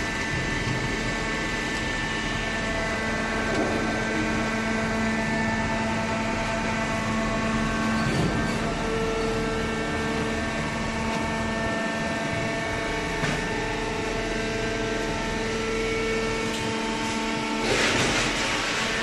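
Automatic hydraulic waste paper baler running: a steady machine hum and whine from its motor and hydraulic pump, with a louder rush of noise near the end.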